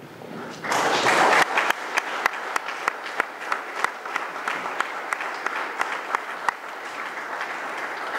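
Audience applauding, starting about half a second in with a brief loud surge, then steady clapping with single claps standing out.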